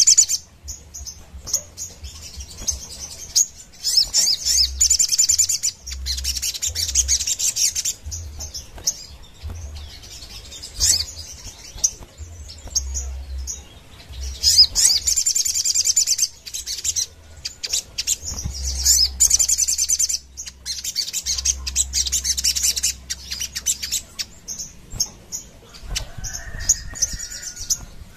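A caged sunbird (the 'sogon' of Indonesian bird-keepers) singing in loud, rapid high-pitched trills, each phrase lasting one to two seconds and repeated after short pauses.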